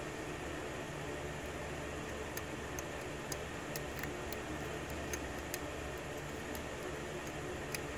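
Faint, irregular metallic clicks of a hook pick working the pins of a brass key-in-knob lock cylinder held under a tension wrench, during single pin picking, about a dozen ticks starting a couple of seconds in. A steady hiss lies beneath.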